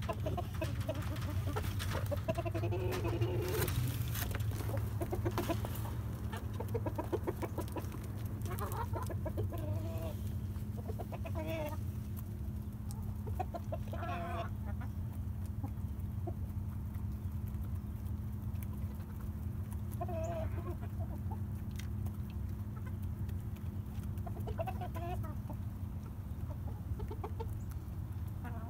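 A flock of backyard chickens clucking, with short calls scattered through and more of them in the first half, over a steady low hum.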